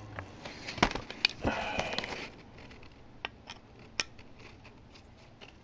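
Screwdriver working at the buttplate screw of a wooden AK-47 buttstock, with knocks from handling the stock: a few sharp clicks, about a second of scraping, then scattered ticks. The screw is on tight.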